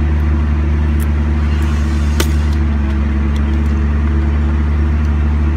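Steady low drone of a running car, heard from inside its cabin, with one sharp click about two seconds in.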